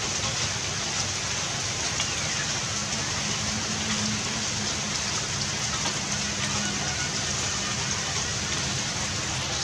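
Steady rain falling on wet paving and puddles.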